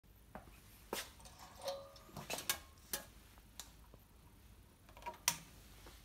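Irregular clicks, taps and knocks of paper and a wire-bound document being handled against a wire-binding closing machine, a few with a brief ringing tone; the loudest knock comes about five seconds in.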